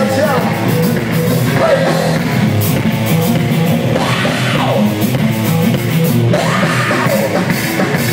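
Live rock-style backing band playing loudly, with electric guitar, bass guitar and drums, bent or gliding notes running over a steady bass line.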